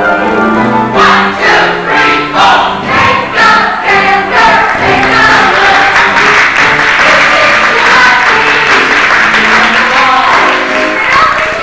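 A cast of voices singing a musical number together in chorus, with a rhythmic beat under it.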